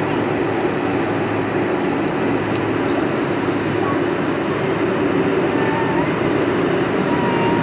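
Steady cabin noise of a Boeing 747-400 taxiing: a constant hum and rush from the jet engines and cabin air, with no change in level.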